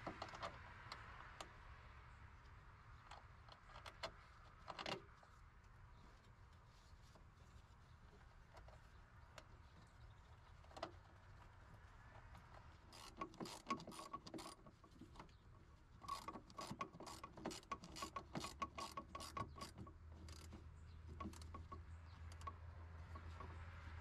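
Ratchet wrench clicking in quick runs of about four or five clicks a second, in two spells in the second half, as a ground wire's bolt is tightened. Scattered faint taps and knocks of tools on metal come before.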